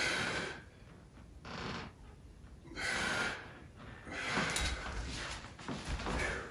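A man breathing hard while working dumbbells: short, forceful breaths about one every one and a half seconds. Near the end the breaths run together with shuffling and a few light knocks as he moves off.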